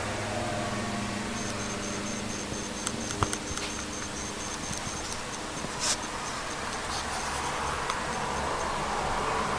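Steady low electrical hum with hiss from a running all-tube clock, with a faint high pulsing whine that comes and goes and a few sharp clicks, the loudest about three seconds in and another near six.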